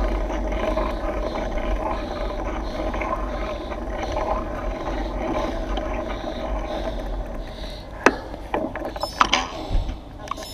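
Mountain bike rolling on pavement, heard from a handlebar-mounted camera as steady tyre and wind noise. A few sharp clicks and knocks come near the end as the bike slows to a stop.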